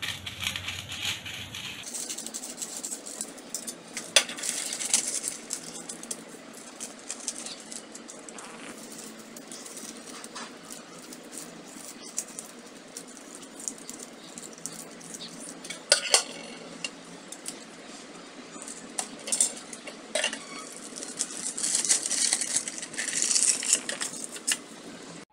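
Baking paper crinkling and rustling as it is cut, folded and pressed into a round metal cake tin, with a few sharp clicks and knocks from the tin and scissors.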